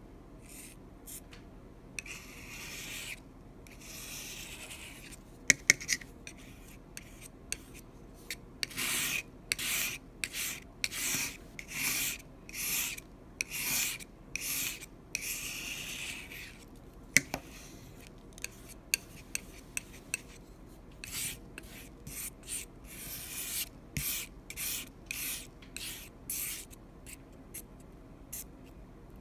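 Palette knife scraping and smearing thick paint across a textured surface in many short, repeated strokes. A few sharp clicks from the knife stand out as the loudest sounds.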